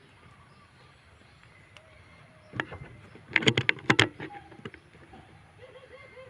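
A quick run of sharp knocks and rattles lasting about a second and a half in the middle, over faint chirping bird calls.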